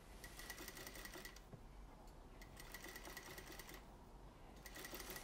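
Sewing machine stitching bias binding onto a curved neckline in three short stop-start runs. Each run is a faint, steady, high whine with rapid needle ticking.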